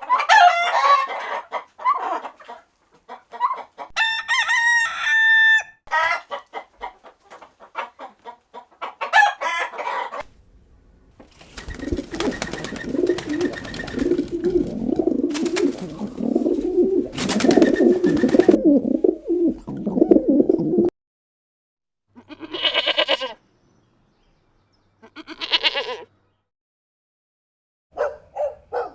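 Domestic chickens calling: hens clucking and a rooster crowing, in several separate stretches with short gaps between them.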